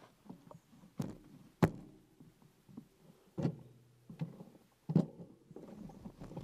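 Bicycle rattling over bumps on a rough dirt track: a string of irregular sharp knocks and clatters, the two loudest about a second and a half in and about five seconds in.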